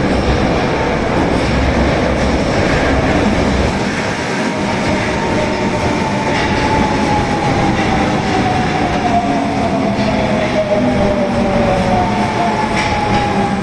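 Osaka Metro Tanimachi Line 22 series subway train running on the rails, with a steady rumble and clatter. Its motor whine glides down in pitch as the train slows.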